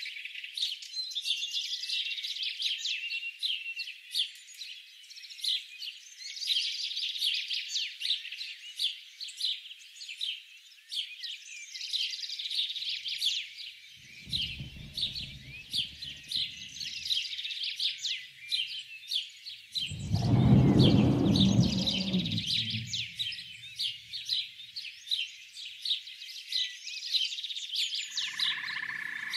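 Birds chirping in a rapid, continuous chorus. About halfway through a low rumbling growl rises under it, and a louder, longer one comes about two-thirds in. Near the end a lower, steadier call joins the chirping.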